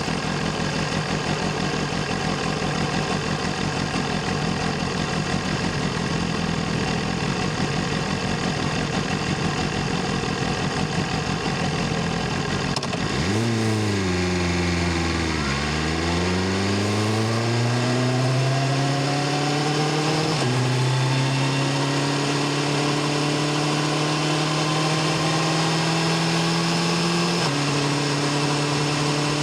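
BMW S1000RR inline-four engine and exhaust, running rough and low for about the first half. About halfway through the revs dip and then climb steadily as the bike pulls away and accelerates. Near the end the pitch drops at an upshift.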